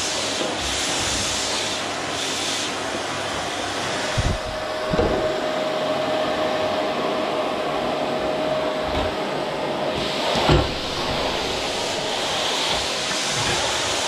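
Electrolux canister vacuum cleaner running steadily as its floor nozzle is pushed over a hardwood floor. A steady whine comes in about four seconds in and drops out around ten seconds, and a few thumps are heard, the loudest about ten and a half seconds in.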